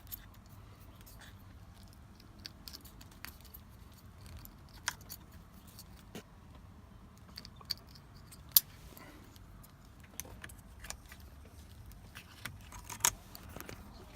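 Scattered light clicks and small metallic rattles of ignition switch parts and keys being handled and test-fitted on a steering column. There is one sharper click a little past the middle and a few more near the end.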